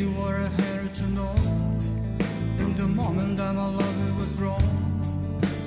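Rock song playing, an instrumental passage without lyrics, with a steady drum beat under sustained band chords.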